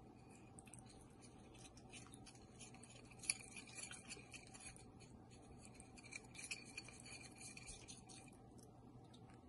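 Faint handling noises of a miniature dish and a small cloth: light scratchy rubbing with small clicks, and one sharp tap a little over three seconds in.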